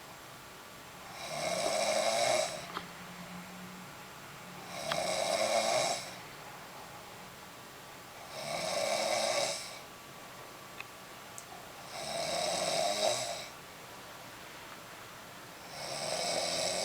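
A person snoring in a steady rhythm: five snores, each lasting a little over a second, coming about every three and a half to four seconds.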